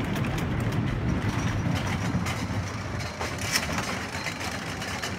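Thunderhawk wooden roller coaster train rolling along its track: a steady rumble of wheels on the rails that eases off after about three seconds, with a sharp click about three and a half seconds in.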